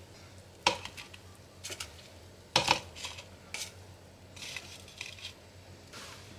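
Utensils clacking against a plate as fried snacks are served onto it: a few sharp clacks about a second apart, the loudest about two and a half seconds in, then lighter taps.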